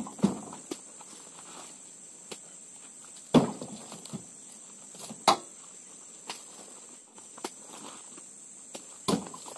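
Oil palm fruit bunches thudding into a pickup truck's bed as they are loaded by hand: about four heavy thuds, the loudest a little over three seconds in, with smaller knocks between. A steady high-pitched insect drone runs underneath.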